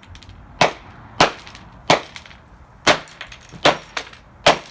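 A hammer striking a Dreamsky DS206 alarm clock radio on a plywood board, breaking it apart: about seven sharp hits, spaced roughly half a second to a second apart.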